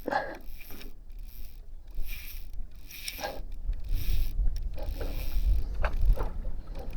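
Fishing reel being worked against a hooked tarpon: mechanical winding and clicking in short spells, with a low rumble that swells in the second half.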